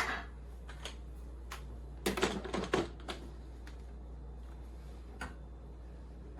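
Scattered clicks and knocks of hard objects being handled: a sharp knock at the start, a quick cluster of clatters about two seconds in, then a few light ticks.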